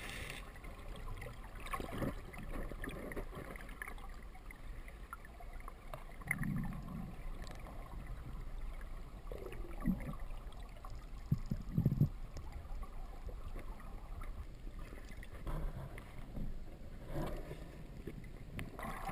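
Muffled underwater sound of a river heard through a GoPro's dive housing: a steady low rush of flowing water with scattered knocks and a few gurgles.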